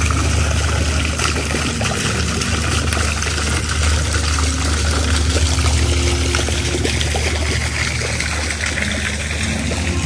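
Garden fountain's jet splashing back into its basin: a steady patter of falling water over a low rumble.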